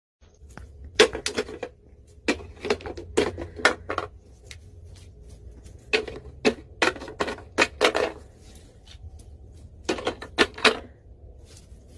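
Sharp tapping clicks in quick irregular clusters, three to six taps at a time with pauses between the groups, over a faint steady low hum.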